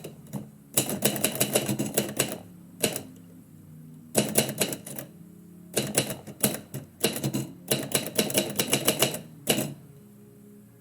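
Typewriter being typed on: bursts of rapid, sharp key strikes, several a second, broken by short pauses.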